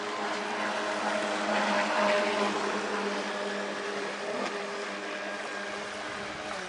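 Riva wooden motorboat's engine running at speed with a steady tone, growing louder to a peak about two seconds in as the boat passes closest and then easing, over a hiss of water from its wake.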